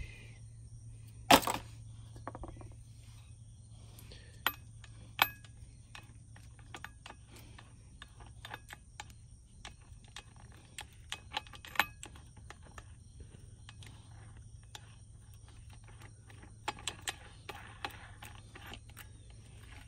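Small metallic clicks and clinks from handling an angle grinder: the grinding disc is unscrewed and a twisted-wire cup brush is threaded onto the arbor and spun on by hand. One louder clack comes about a second in. A faint low hum runs underneath.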